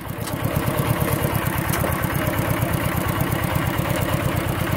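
Kubota two-wheel walking tractor's single-cylinder diesel engine running steadily with an even, rapid beat while it pulls its trailer.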